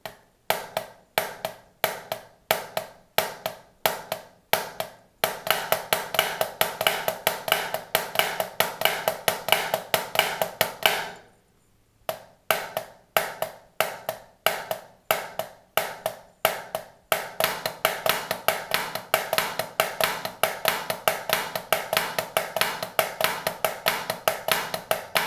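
Drumsticks on a practice pad playing the Swiss Army triplet rudiment, flams and taps in a triplet pattern: first in slow, spaced groups, then fast and continuous for about six seconds. After a short stop it starts slow again and speeds up into a second fast run.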